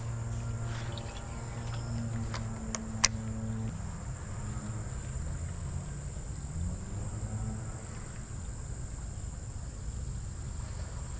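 Steady high-pitched chorus of crickets or similar insects, over a low rumble. A few sharp clicks come in the first three seconds, the loudest about three seconds in.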